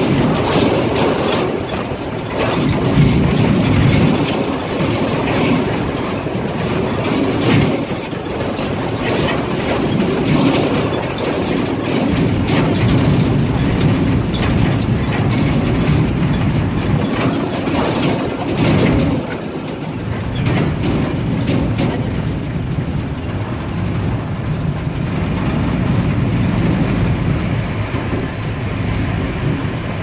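Open-top safari jeep driving on a rough dirt track, heard from inside the vehicle: the engine runs steadily while the body rattles and knocks over the bumps, easing off briefly about two-thirds of the way through.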